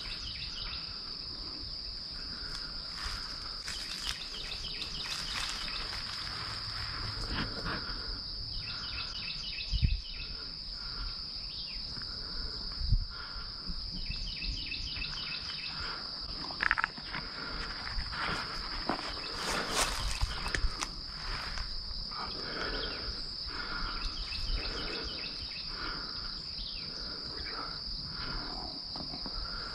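Insects calling: a steady high-pitched drone, with shorter calls repeating lower down, about one a second in the second half. A few sharp knocks stand out about ten, thirteen and seventeen seconds in.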